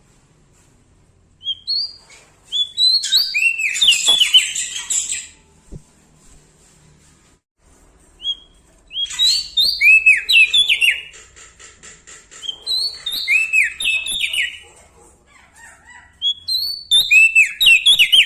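A prenjak daun (Lombok leaf warbler) singing four loud bursts of rapid, chattering song made of quick slurred notes, with short pauses between the bursts.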